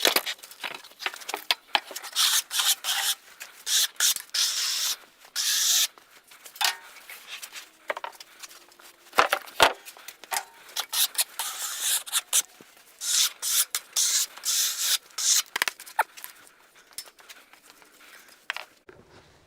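Quick, irregular scratchy rubbing strokes, a couple of dozen of them, each under a second long, stopping shortly before the end.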